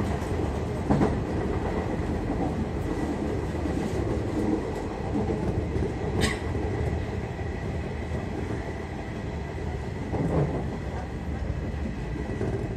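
813 series electric train running, heard from inside the front car behind the cab: a steady rumble of wheels on rail with a few sharp clicks about a second, six seconds and ten seconds in, easing slightly quieter toward the end.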